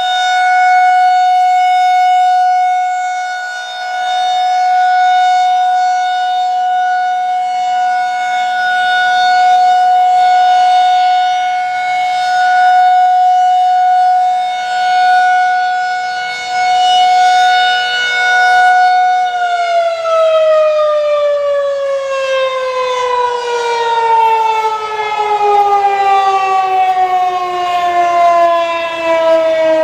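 Federal Signal 2001-SRNB rotating outdoor warning siren sounding its steady test wail, swelling and fading every few seconds as it rotates. About 19 seconds in the tone starts falling in pitch as the siren winds down at the end of the test.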